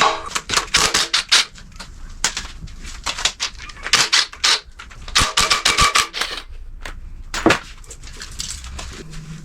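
Hand ratchet wrench clicking in quick bursts as bolts are worked loose on the front of an engine, with a single knock about three quarters of the way through.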